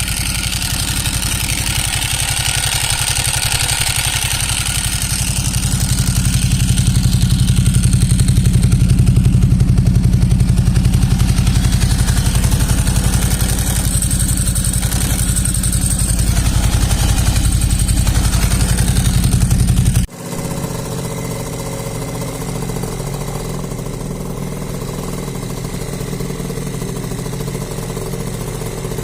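A motorcycle engine idling steadily. About two-thirds of the way in the sound cuts abruptly to a different engine running steadily and a little more quietly.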